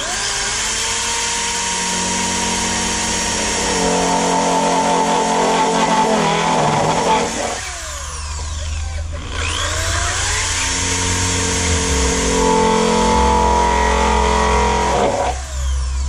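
Electric drill boring holes through a plastic pipe in two long runs. The motor spins up at the start, slows for a moment about seven and a half seconds in, then spins back up and runs until near the end.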